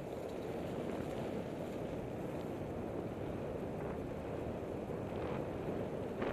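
Wind buffeting the microphone over a steady rumble of a bicycle rolling along a leaf-strewn, then dirt path, with a light knock near the end.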